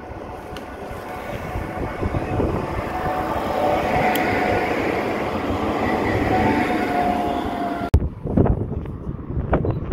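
A Dresden low-floor tram running past close by on street track, its rolling noise swelling as it passes, with a steady whine. About eight seconds in the sound cuts off abruptly to wind buffeting the microphone.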